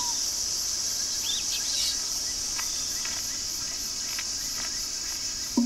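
Rainforest ambience: a steady, high-pitched drone of insects, with a few short chirping bird calls over it.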